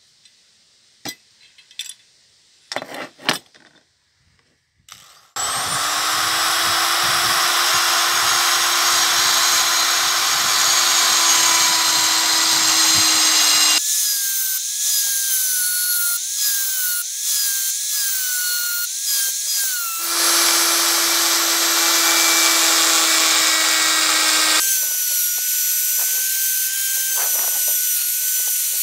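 A few knocks as the rusty steel scale beam is handled, then a handheld rotary power tool spins up about five seconds in and grinds and sands rust off the steel beam with a gritty whine. The sound changes abruptly several times, and in places the motor's pitch wavers and dips as the bit bites.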